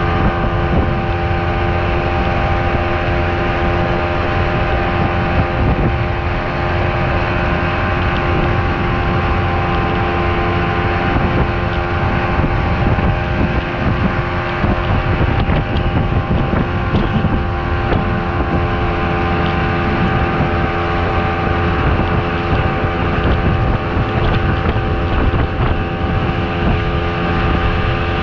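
Outboard motor running steadily at cruising speed, pushing a small open boat through the water, with wind buffeting the microphone.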